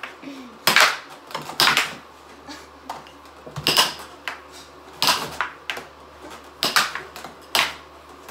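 Air hockey puck and mallets clacking during a fast rally: sharp hits at irregular intervals, several coming in quick pairs as the puck strikes a mallet and then the table rail.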